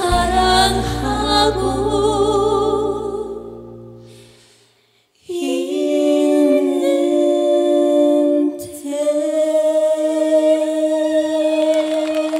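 Closing phrase of a Korean trot ballad: a singer holds a long note with vibrato over the backing band, which fades out. After a brief silence about five seconds in, two women and a man sustain a final unaccompanied harmony chord.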